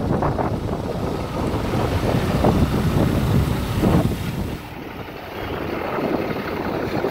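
Wind buffeting the microphone in uneven gusts, with a low rumble underneath; it eases about two-thirds of the way through.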